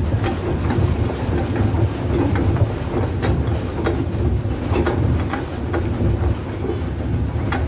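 Swan pedal boat under way: a steady low churning rumble from the pedal drive pushing through the water, with irregular clicks and knocks from the mechanism.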